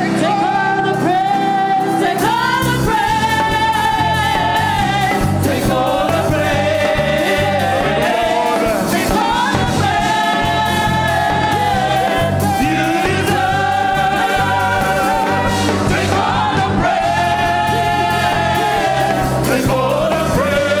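Upbeat gospel worship song: several voices singing with a live band that keeps a steady beat.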